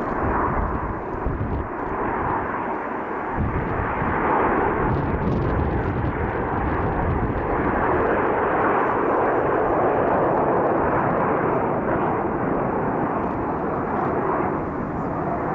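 Jet noise from a formation of Aermacchi MB-339 jet trainers with Rolls-Royce Viper turbojets passing overhead: a steady rushing roar that swells slightly about four seconds in, with a gusty low rumble in the first three seconds.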